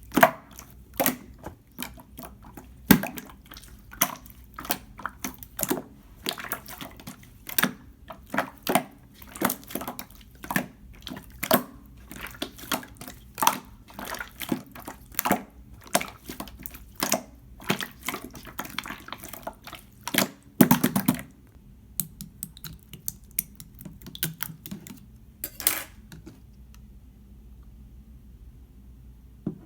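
Clear slime being squished and poked by hand, making sticky wet popping clicks several times a second. After about twenty seconds the clicks thin out to a few scattered ones.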